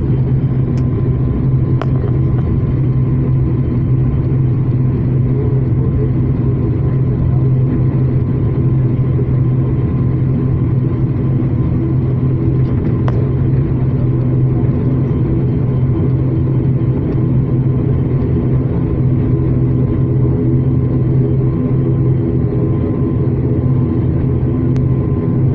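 ATR 72 turboprop airliner's engines and propellers droning steadily, heard from inside the passenger cabin while the aircraft moves along the runway.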